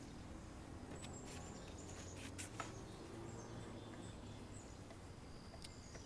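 Quiet outdoor background with faint high bird chirps, and a few light clicks and knocks as a log is handled in a wooden frame and its eye bolt is adjusted.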